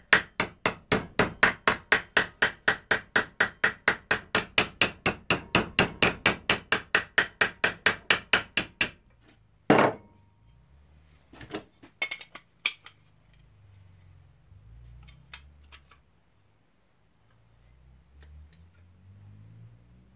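Hammer beating a sheet-steel plate into shape, about five quick, even blows a second for around nine seconds. Then comes one heavier blow and a few lighter taps.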